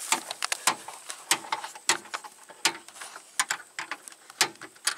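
Irregular sharp metallic clicks and clinks, a few to several per second, from a wrench working the steering-box mounting bolts under the 4x4's chassis. The bolts have torn through the chassis rail.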